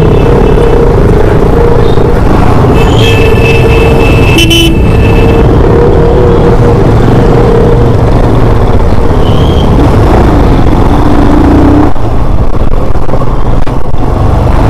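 Vehicle horns honking in slow, congested traffic over a steady, loud rumble of engines. One held horn tone sounds through the first half, and higher horn blasts come about three to five seconds in.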